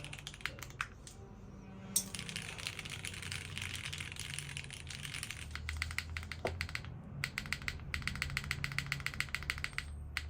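Typing on a custom mechanical keyboard with modded Cherry MX Brown Hyperglide tactile switches and GMK keycaps, picked up by a phone microphone. Rapid keystrokes, with a short pause about a second in.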